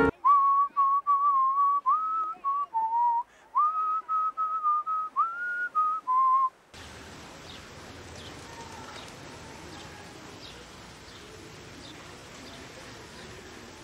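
A person whistling a short tune in held notes, several of them reached by an upward slide, for about six and a half seconds. It then cuts to a steady outdoor background hiss with a few faint bird chirps.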